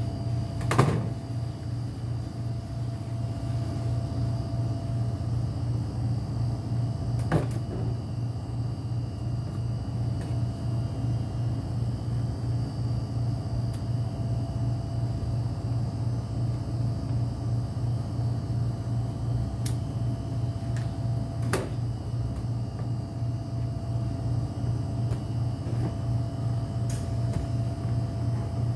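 A steady low mechanical hum throughout, like a nearby appliance motor or fan. A few sharp clicks and snips fall over it, the loudest about a second in, from scissors and handling of the bag.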